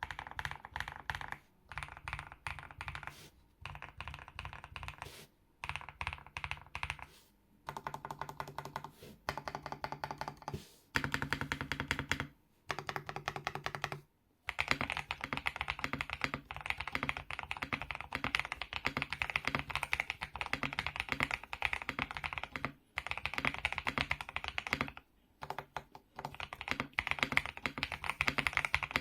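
Eave65 mechanical keyboard with KTT Coconut Latte switches and Clackycon keycaps being typed on: runs of quick keystrokes broken by short pauses, with faster, denser typing in the second half.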